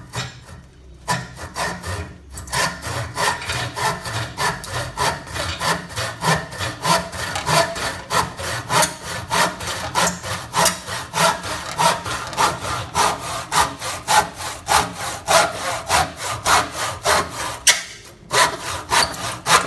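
Dexter 500 mm western hand saw with 8 teeth per inch and triple-ground teeth sawing through a wooden rafter in fast, even push-pull strokes, about two a second. There is a brief pause near the end, then a few more strokes.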